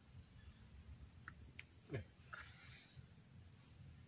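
Insects, tagged as crickets, chirring in a steady, unbroken high-pitched drone. About two seconds in comes a brief falling sweep, the loudest sound, with a few faint short chirps around it.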